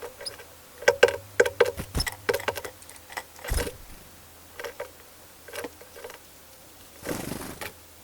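A small bird pecking and tapping on wood, a quick irregular run of sharp taps with one heavier knock, then a brief rustle near the end.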